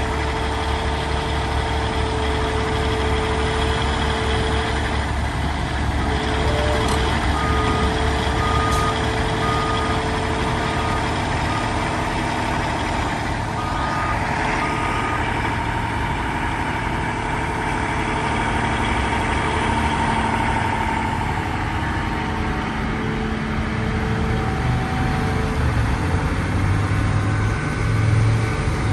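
Caterpillar 349E excavator's diesel engine running steadily with a low pulsing rumble while its boom and bucket are repositioned. A run of short, evenly spaced beeps sounds from about 7 to 15 seconds in.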